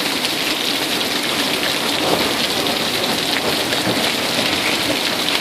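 Heavy rain mixed with hail pouring down in a steady, dense hiss.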